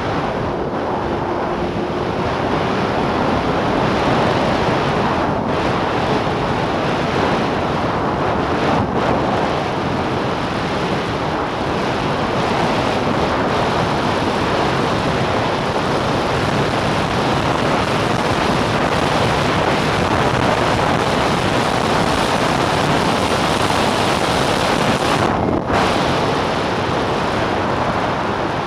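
Steady rush of wind on the microphone from a snowmobile moving at speed, with the Arctic Cat F7 Firecat's two-stroke engine and track running underneath. The wind noise briefly drops out once near the end.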